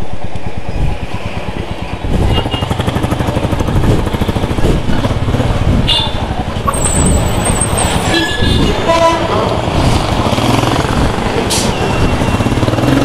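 Royal Enfield Bullet 350's single-cylinder engine running as the motorcycle rides slowly through town traffic, heard from the rider's seat. A vehicle horn toots briefly about two-thirds of the way through.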